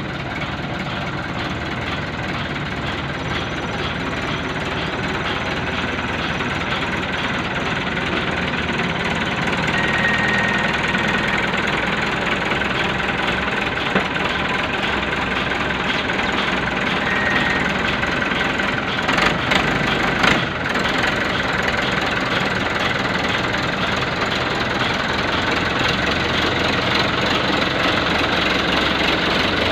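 Fiat 640 diesel tractor engine running steadily, growing louder over the first ten seconds, with a few brief knocks around the middle.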